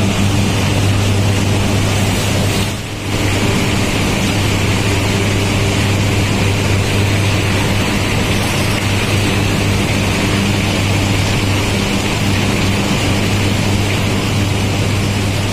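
Steady drone of sugar mill machinery, a strong low hum under an even hiss, dipping briefly about three seconds in.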